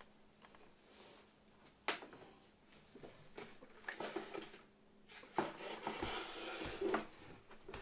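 Small paint bottles clicking and clattering as they are handled and sorted through: a sharp click about two seconds in, a few light knocks, then a couple of seconds of rattling near the end.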